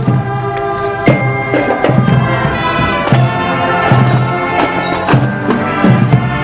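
Marching band playing: sustained pitched chords over sharp percussion hits every half second to a second.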